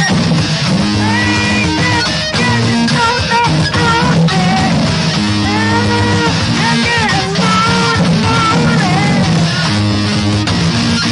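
Rock music with electric guitar, a stepping bass line and a vocal or lead melody that glides up and down.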